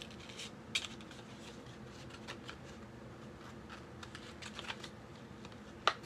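Light clicks, taps and rustles of a small hard object being handled and pushed back into its packaging, with a sharp click about a second in and a louder one near the end.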